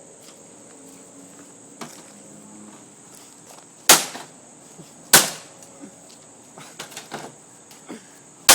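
Three loud, sharp blows of a pipe striking an air conditioning unit: two about a second apart around the middle, and a third near the end.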